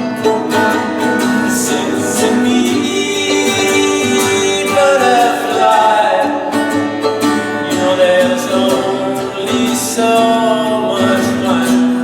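Live acoustic music with no sung words: plucked guitar accompaniment, with a melody line that slides up and down in pitch above it.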